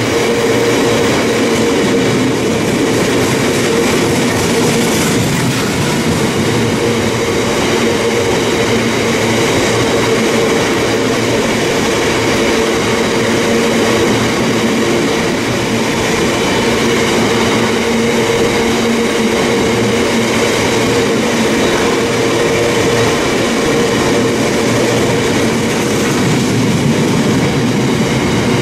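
Drax biomass hopper wagons of a freight train passing close at speed: a loud, steady rumble of steel wheels on the rails.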